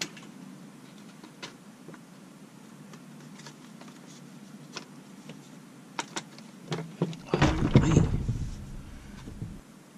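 Light, scattered clicks of metal parts and tools being handled during a chainsaw teardown. About seven seconds in comes a louder clattering scrape with a low rumble, lasting about two seconds.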